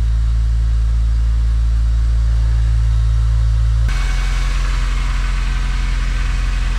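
Acura RSX Type-S's K20 2.0-litre four-cylinder idling steadily through a new Yonaka catback exhaust, with a deep tone. About four seconds in the sound changes abruptly and is heard close to the exhaust pipes under the car, with more hiss.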